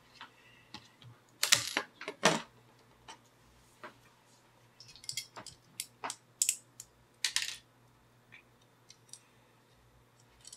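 Support material being snapped and picked off a 3D-printed plastic figure by hand: irregular sharp plastic clicks and cracks, bunched in two flurries, with broken-off bits dropping onto the steel print sheet.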